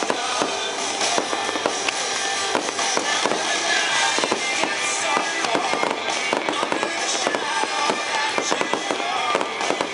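Fireworks display: aerial shells bursting in a rapid, continuous string of bangs and crackles, with music playing along.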